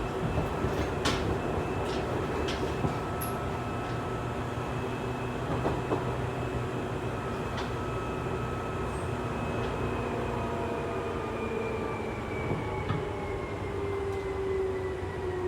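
Running sound inside a Seibu 2000-series electric multiple unit's motor car: steady rumble with a whine from the traction motors and gears. Several sharp clicks in the first three seconds. The whine falls in pitch through the second half as the train slows.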